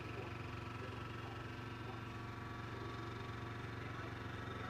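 Domestic cat purring steadily.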